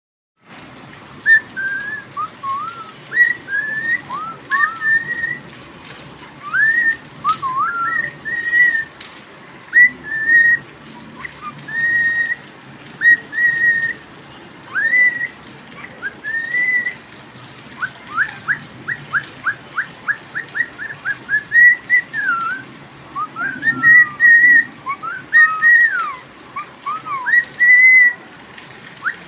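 Cockatiel whistling its song: a string of short, clear whistled notes, many sliding up and then held, with a quick run of short rising notes about two-thirds of the way through.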